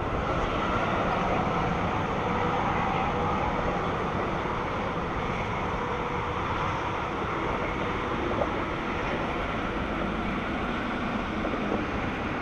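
A steady rumbling noise that starts abruptly and holds level throughout, with a faint hum running through it.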